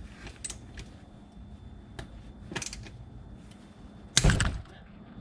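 A ratchet working the T30 inner Torx drain plug on a Ford 5R55S transmission pan: a few light metal clicks, then about four seconds in one sudden loud crack as the plug's Torx head snaps off.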